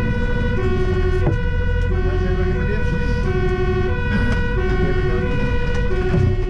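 Fire engine's two-tone siren alternating evenly between a low and a high note, each held for about two-thirds of a second, heard from inside the cab over the steady rumble of the truck's engine.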